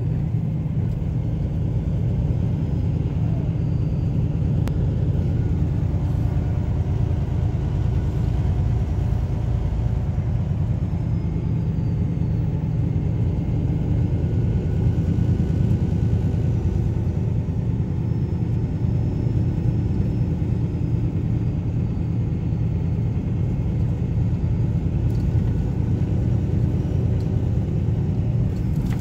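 Steady low rumble of a semi-truck's engine and road noise, heard from inside the cab while driving.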